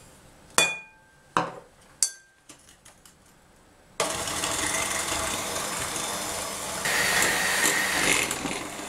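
A few sharp clinks of glass with a brief ring, then about four seconds in an electric hand mixer starts with a steady whir, its beaters whipping egg yolks and sugar until pale; the whir grows a little louder and higher about seven seconds in.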